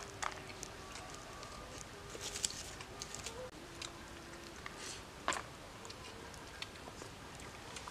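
Close, quiet eating by hand: chewing a mouthful of rice and pork, and fingers pressing and scooping rice off a banana leaf, heard as scattered soft clicks and rustles.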